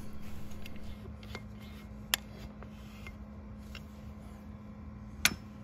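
Quiet room tone with a steady low hum, broken by a few isolated sharp clicks, the loudest about two seconds in and another near the end.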